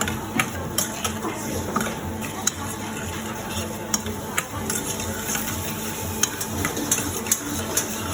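Food sizzling in a hot pan while a metal utensil stirs it, with irregular sharp clicks of metal on metal.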